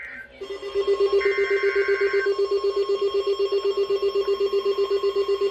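Emergency Alert System tornado warning alert tones as a second warning comes in on top of the first. A loud alarm tone, pulsing about eight times a second, starts about half a second in over a steady higher tone. A short screechy burst of data-header tones sounds from about one to two seconds in.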